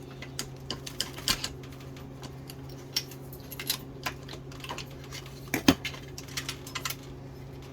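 Scattered light metallic clicks and clinks of transmission valve body parts and hand tools being handled as a part stuck on its dowel pins is worked loose, with one louder metal knock about five and a half seconds in. A steady low hum runs underneath.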